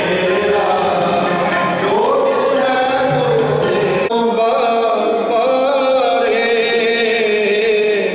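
Sikh kirtan: harmoniums playing with male voices singing a hymn in a steady, chant-like melody.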